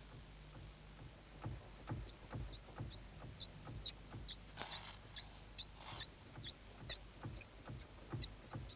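Repeated short, high-pitched squeaks, several a second, starting about two seconds in and growing more frequent, with a few faint knocks: the mystery squeak in the Volkswagen.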